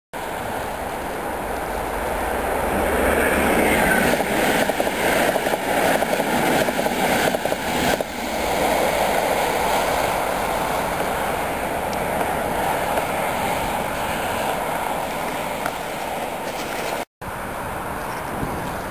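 Train running past on the nearby track: a steady rush with rapid clicks of wheels over the rails, loudest about four to eight seconds in, then a steadier, gradually fading rumble. The sound cuts out briefly near the end.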